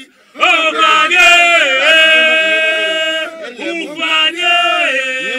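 Men's voices singing a slow traditional chant, starting after a brief pause: two long phrases with drawn-out, held notes.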